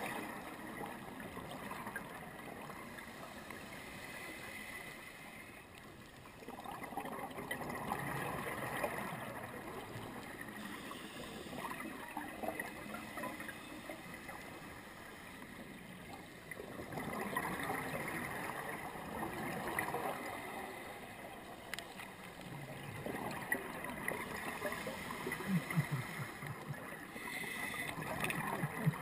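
Underwater scuba breathing: a diver's regulator bubbles gurgling, swelling with each exhalation and fading between breaths, three or four slow cycles.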